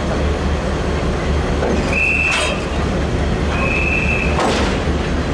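A locomotive turntable rotating under load, with a steady low rumble. A high metallic squeal comes twice, each about half a second long, and a sharp clank follows each squeal.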